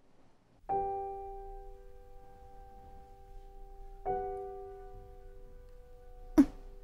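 Soft background music: two sustained chords, one struck about a second in and another about four seconds in, each fading slowly. A brief sharp sound comes near the end.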